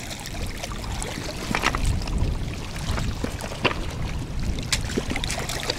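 Water splashing and dripping around a wire-mesh keepnet of crucian carp handled in the shallows, with scattered sharp clicks and a steady low wind rumble on the microphone.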